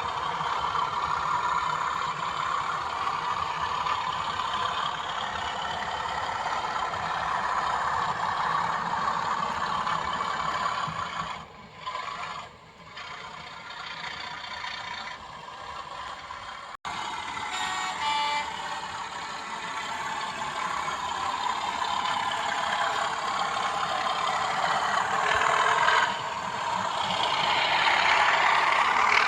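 Hornby TTS sound decoder in a Bachmann Class 37 model locomotive playing a recorded Class 37 diesel engine sound through a small iPhone speaker. There is a brief quieter dip, then an abrupt cut a little over halfway, and the engine sound grows louder near the end.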